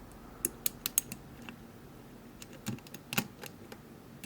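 Scattered small metallic clicks at an uneven pace, a few close together at times, from a lock pick working the pin stacks inside a Vachette V5 euro cylinder during picking.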